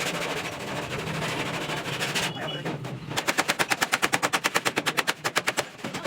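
Body-shop tool work: a stretch of steady noise, then from about halfway a fast, even run of sharp impacts, roughly eleven a second, for nearly three seconds.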